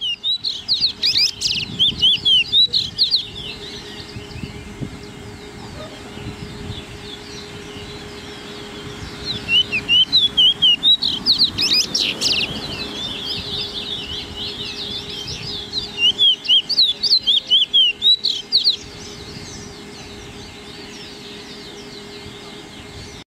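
Male chestnut-bellied seed finch (picolet) singing in a cage: three bursts of rapid, high twittering song, separated by pauses of several seconds.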